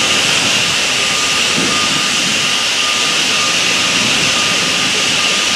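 Steady, loud din of construction-site machinery: a continuous hiss with a faint high tone that comes and goes.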